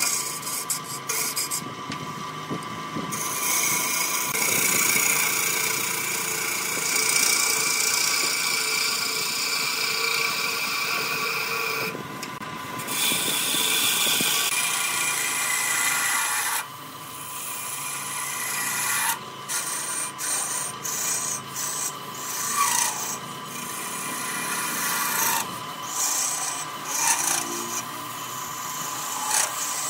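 Hand-held turning tool cutting a spinning wooden blank on a wood lathe: a continuous scraping hiss of shavings being peeled off, with several brief breaks and changes as the tool is lifted and moved along the rest. A steady whine from the running lathe sits underneath.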